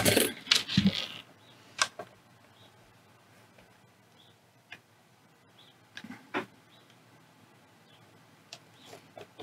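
Handling noise at a soldering bench: a rustling clatter in the first second, then scattered light clicks and taps as the soldering iron and solder wire work an XT60 connector held in a helping-hands clip.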